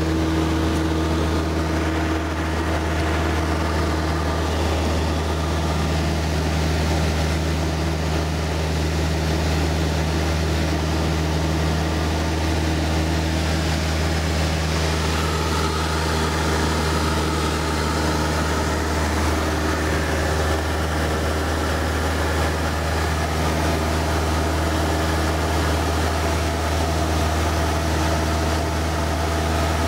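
Cessna 172 floatplane's engine and propeller droning steadily in flight, heard from inside the cabin, at an even low pitch that does not change.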